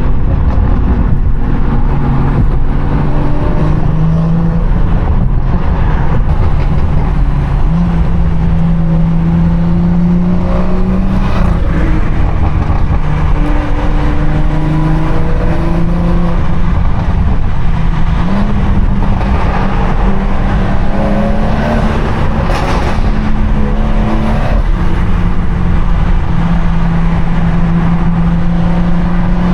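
BMW 340i's turbocharged inline-six with a valved aftermarket exhaust, droning steadily under way. Its pitch holds for a few seconds at a time, then steps up or down several times as the revs change.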